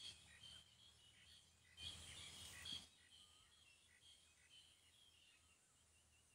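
Near silence: faint outdoor ambience with small high chirps throughout, and a brief soft rustle about two seconds in.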